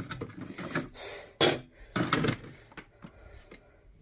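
Hard plastic clacks and clicks of a Keurig Duo coffee brewer being handled as its lid is shut down over the pod. The sharpest clack comes about a second and a half in, with lighter clicks near the end.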